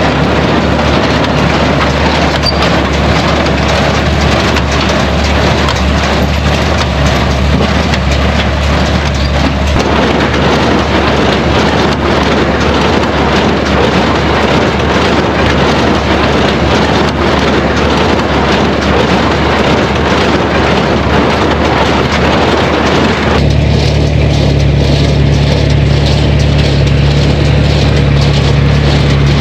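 Farm tractor engine running at a steady speed under a loud, even rush of noise. The sound changes abruptly about ten seconds in and again a few seconds before the end.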